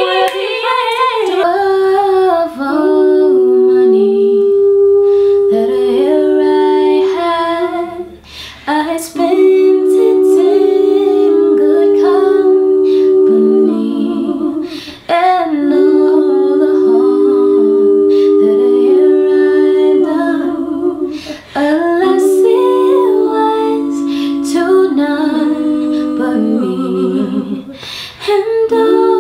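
Young women humming a wordless tune together a cappella, in long held notes with two voices in harmony. The humming comes in phrases of six or seven seconds, with short breaks between them.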